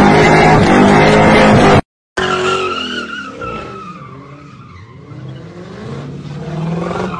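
Car engine revving hard with its tyres spinning, cut off abruptly about two seconds in; then another car drifting, with tyres squealing in wavering, falling tones over a revving engine, quieter than the first.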